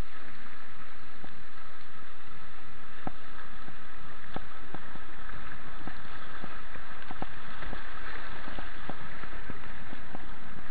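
Steady rush of fast-moving river water around a kayak, with irregular light clicks and taps several times a second from about three seconds in.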